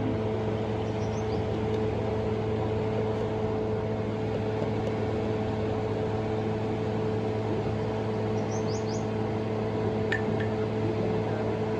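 A steady machine hum with a few fixed tones, unchanged throughout, with brief high chirps about a second in and again near 9 seconds and a single click near the end.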